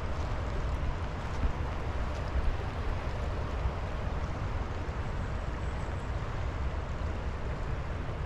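Creek water running steadily over a riffle, with a low wind rumble on the microphone.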